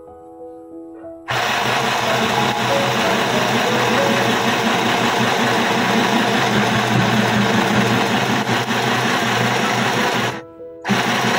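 Small portable sewing machine running at speed while stitching, a loud fast rattling clatter that starts suddenly about a second in, runs for about nine seconds, stops, then runs again briefly near the end. Soft piano music is heard before it starts.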